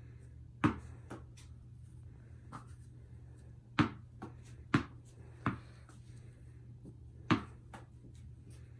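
Tennis ball bouncing and being caught, heard as a handful of sharp thuds at uneven intervals over a low steady hum.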